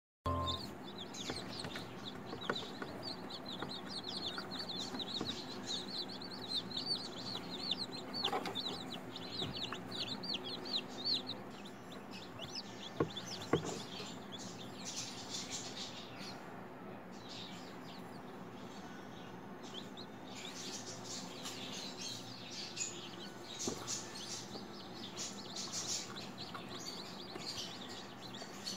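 Hatching chick peeping: a rapid run of short, high-pitched chirps for the first ten seconds or so, then scattered chirps again in the latter part, over a low steady hum.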